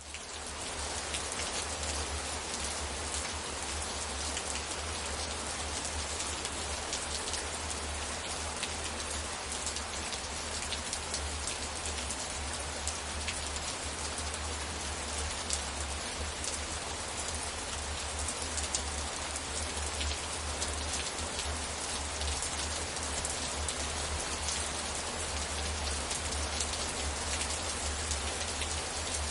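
Steady rainfall, a dense even hiss of rain with many individual drop ticks on top, fading in at the very start.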